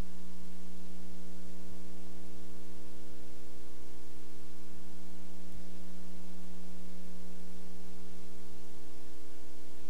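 Steady electrical hum with a buzzing tone and hiss: line noise on a recording with no program sound.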